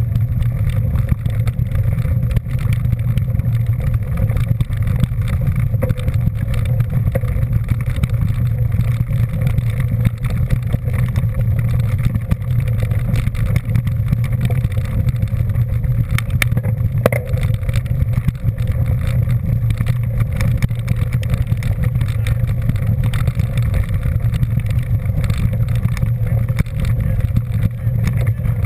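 A vehicle on the move: a steady, unbroken low rumble of engine and travel noise that holds at the same level throughout.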